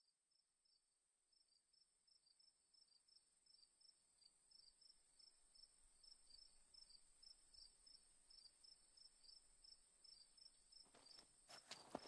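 Crickets chirping, about three short high chirps a second over a steady high insect trill, fading in gradually. Footsteps rustling through brush begin near the end.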